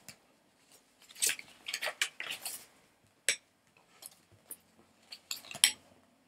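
Peach cardstock being handled and creased with a bone folder: scratchy rustling and rubbing of card on a clear craft mat, broken by a few sharp clicks.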